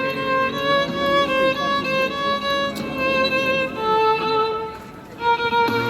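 Violin music: a melody of held notes, with a short quieter gap about five seconds in.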